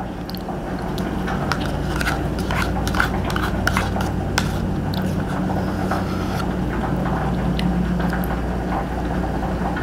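Eating yogurt with a spoon from a small cup: scattered small clicks and scrapes of the spoon against the cup, with chewing and mouth sounds, over a steady low hum.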